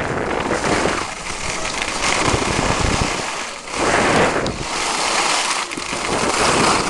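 Skis scraping and hissing over packed snow, with wind rushing on the microphone. The noise swells and fades every couple of seconds as the skier turns.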